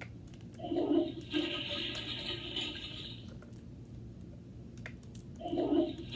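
Toy toilet game's flush sound effect, played twice through its small speaker: a short gurgle, then about two seconds of rushing water, starting again near the end.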